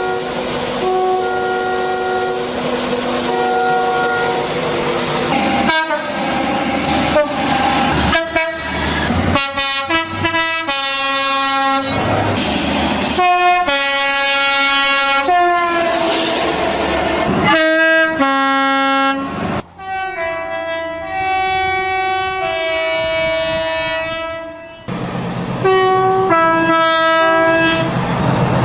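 Train horns sounding one after another, several two-tone horns alternating between a high and a low note, some in long blasts and some in quick short toots, over the noise of passing trains running on the rails.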